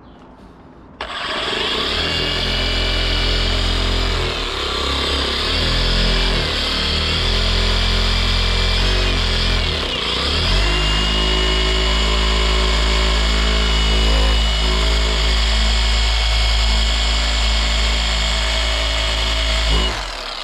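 Electric orbital polisher with a foam pad running against car window glass, polishing off etched-on contaminants and haze. It starts up about a second in, runs steadily with a motor whine whose pitch shifts about halfway, and cuts off near the end.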